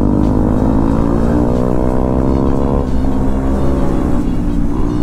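Bajaj Dominar motorcycle engine pulling under throttle. Its pitch rises steadily for about three seconds, drops at a gear change or throttle lift, then starts climbing again near the end, over low wind and road rumble.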